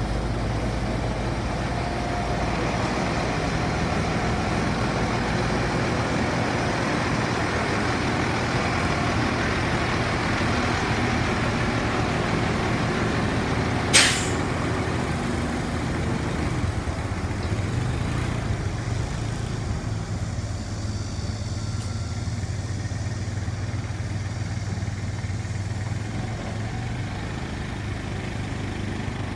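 Heavy diesel engine idling steadily, a low even rumble, with one short sharp burst of noise about halfway through.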